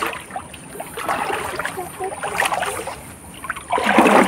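Shallow river water sloshing and trickling as someone wades and scoops for small fish and shrimp, with a louder splash building near the end.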